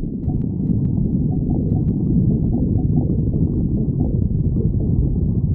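Human stomach growling: a continuous low rumble with short, higher gurgles scattered through it.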